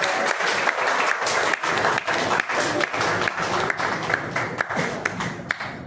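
A small group of people clapping their hands, with many quick claps overlapping.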